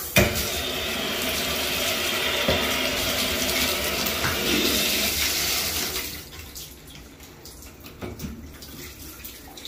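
Water running steadily as a scrubbed shower is rinsed down, shutting off about six seconds in, followed by a few faint knocks.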